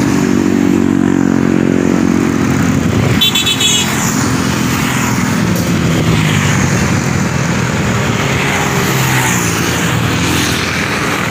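Road traffic of motorcycles and cars passing close by, engines running and changing pitch as they go past, with a short vehicle horn toot a little over three seconds in.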